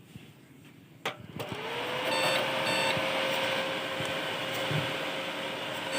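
Desktop computer switched on for a test start with a newly fitted RAM stick: a click about a second in, then its fans spin up with a rising whine that settles into a steady whirring hum.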